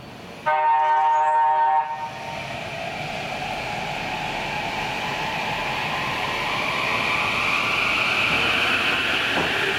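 Kintetsu 22600 series 'Ace' electric train sounding its horn once for just over a second as it departs, then pulling away from the platform. A whine from its traction motors rises in pitch and the running noise grows louder as the train picks up speed.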